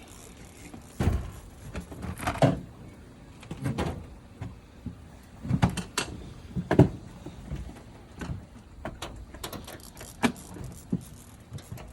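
Irregular knocks, thumps and light rattles of gear and a cooler being handled on a boat, about a dozen hits at uneven spacing with the heaviest in the first seven seconds.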